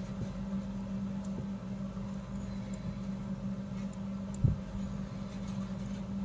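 Metal knitting needles clicking faintly now and then as stitches are worked, over a steady low hum. A single thump about four and a half seconds in.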